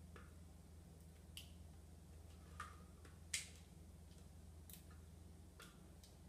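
A spatula scraping and tapping thick mole sauce out of a plastic food processor bowl: about five faint, sharp clicks, the loudest a little past halfway, over a steady low hum.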